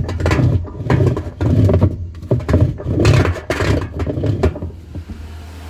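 LEC17 top-loading washing machine on its agitate stroke, making a loose, irregular knocking and grinding noise. The agitator's splines are corroded away, so it slips on the drive shaft instead of turning. The knocking stops near the end and a steady low motor hum is left.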